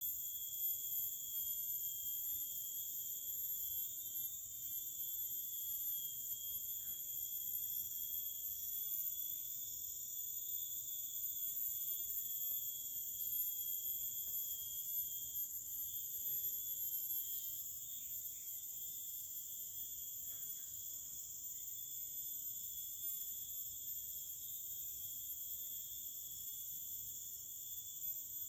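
A continuous high-pitched insect chorus: several shrill steady tones layered together, running without a break.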